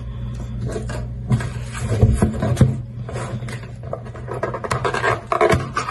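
Handling of the phone's retail box and packaging: irregular scraping and rustling with scattered clicks and light knocks.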